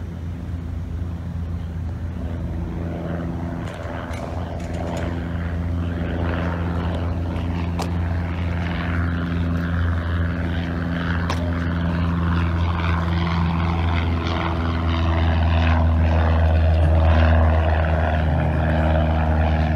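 Propeller airplane flying overhead, its engine droning steadily and growing louder towards the end.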